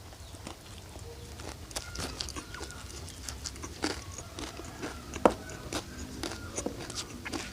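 Close-miked eating sounds: chewing and mouth clicks at an irregular pace, with one sharper click about five seconds in.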